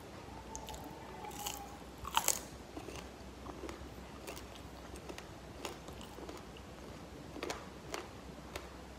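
Close-miked chewing of crispy fried chicken wing, with scattered crunches and wet mouth clicks; the loudest crunches come a couple of seconds in and again near the end.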